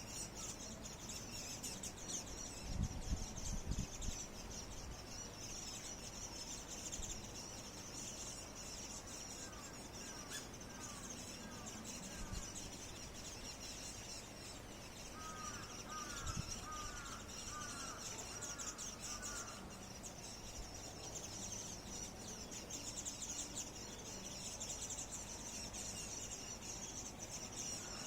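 Many small birds calling together in a camellia tree: a constant, dense, high-pitched twittering. A run of repeated short falling notes comes about ten seconds in and again midway. A few low thumps sound near the start.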